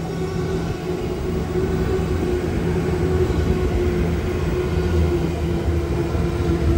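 SL X60 electric commuter train pulling into the platform: a steady motor whine that sinks slightly in pitch as it slows, over a low rumble of wheels on rails that grows louder.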